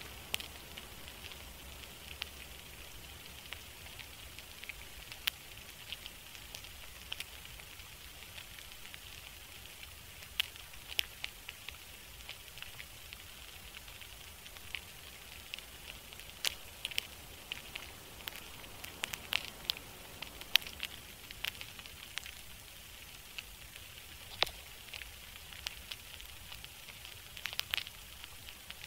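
Crackling ambience: a steady hiss with many sharp, irregular pops and crackles scattered through it, more frequent in the second half.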